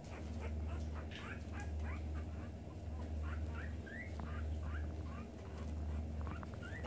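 Newborn Jindo puppies, about a week old, squeaking and whimpering. Many short, high, rising squeaks overlap from several pups at once, over a low hum that swells and fades about every second and a half.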